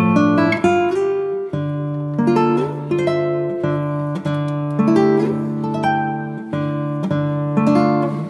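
Background music: solo acoustic guitar playing a plucked melody over low bass notes.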